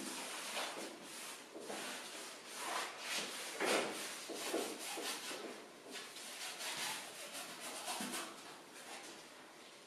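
A sponge and a paintbrush rubbing and dabbing black paint onto a canvas on an easel, in uneven scratchy strokes.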